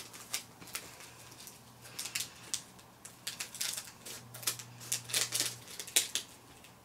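Scissors snipping open a small plastic snack packet, a series of short sharp snips and crinkles of the wrapper, busiest in the second half.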